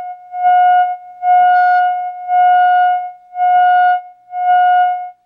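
A steady buzzy test tone of about 700 Hz from a Heathkit T-3 signal tracer's speaker, swelling loud and dropping back about six times, then falling to a faint hum near the end. The tracer is working again with plenty of gain after its faulty plate resistor was replaced.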